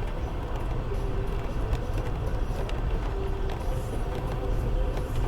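Cabin noise of a Land Rover Freelander 2 driving slowly down a rough, rutted byway: a steady low rumble of engine and tyres, with a few light knocks from the bumpy track.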